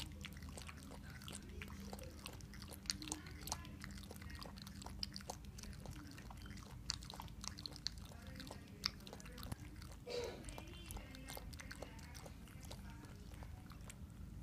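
Husky puppy lapping water from a bowl: a quick run of faint wet clicks, several a second, over a low steady hum.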